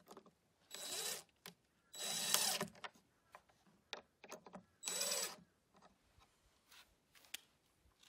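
DeWalt cordless drill-driver driving screws into a wooden block on a birdhouse: three short runs of the motor's whine, about a second in, around two seconds and about five seconds in, with small clicks and knocks in between.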